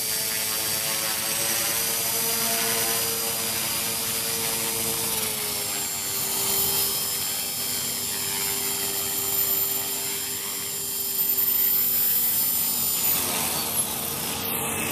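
Align T-Rex 450 Pro electric RC helicopter flying: its motor and rotor make a steady whine that dips slightly in pitch about five seconds in and changes again near the end, as it sets down on the grass.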